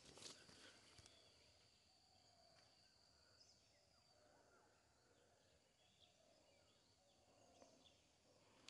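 Near silence: faint open-air field ambience with scattered distant bird chirps and a thin steady high insect-like tone that stops a few seconds in, plus a few soft clicks in the first second.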